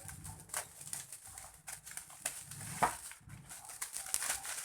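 Plastic packaging crinkling and rustling as a tightly wrapped parcel is opened by hand, with a sharper snap just under three seconds in.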